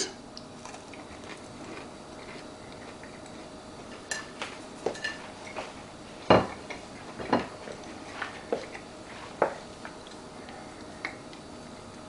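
Scattered light clinks and knocks of a ceramic plate being handled and set down on a kitchen counter, the loudest knock about six seconds in.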